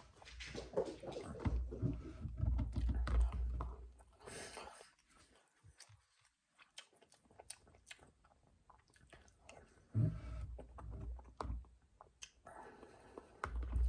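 Close-up sounds of a person chewing and eating spoonfuls of beef stew, in bursts: heavy for the first few seconds, then quieter with scattered light clicks, picking up again around ten seconds in and near the end.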